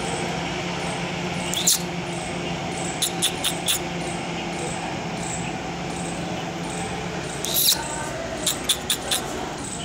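Indian palm squirrel giving short, sharp, high-pitched chirps, in a quick run of four about three seconds in and another run near the end, over a steady low hum.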